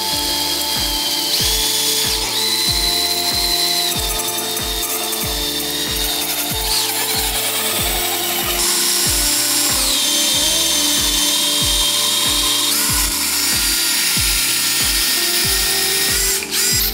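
Power drill spinning a wooden blank through a dowel-cutting jig fitted with jigsaw blades, which shave it round. The motor's high whine steps up and down in pitch a few times, over background music with a steady beat.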